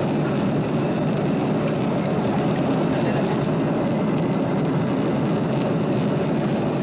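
Steady jet airliner cabin noise at cruise: an even rush of engine and airflow sound heard from inside the passenger cabin.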